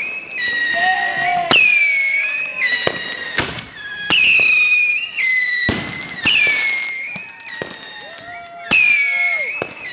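Whistling fireworks going off one after another: about six shrill whistles, each starting high and dropping a little in pitch before holding for about a second. Sharp bangs and crackles come in between.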